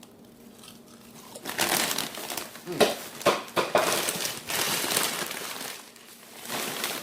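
Crinkling of a plastic chip bag being handled, in loud bursts starting about a second and a half in, with a short pause near the end.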